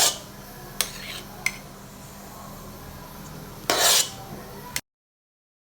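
Metal spoon clinking and scraping against a dish as meringue is spooned onto a tart: a few light clinks, one with a short metallic ring, then a longer scrape. The sound cuts off abruptly near the end.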